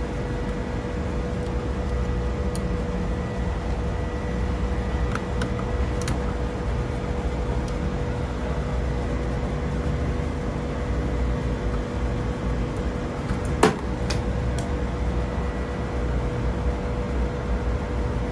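Steady mechanical hum with a low rumble and a few held tones, with a few light clicks and one sharper click about three-quarters of the way through, as wires are handled and disconnected at the unit's contactor.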